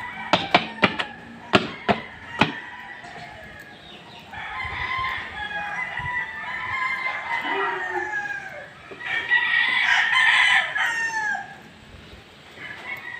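Several gamefowl roosters crowing, their long calls overlapping from about four seconds in until near the end. Before that, a quick run of about six sharp knocks or clicks, the loudest sounds here.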